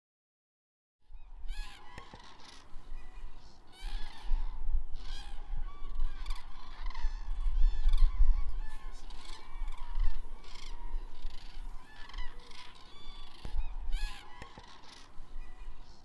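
A large flock of birds calling at once, many short calls overlapping, over a low rumble that is loudest near the middle. It starts about a second in.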